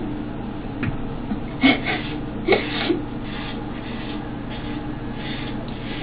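Electric hair clippers buzzing steadily while shaving a head down to the scalp, with the blades rubbing and scraping over the scalp. A few short breathy sounds come in the first half.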